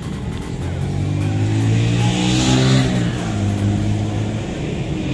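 A motor vehicle driving past, its engine growing louder to a peak about two and a half seconds in, then fading away.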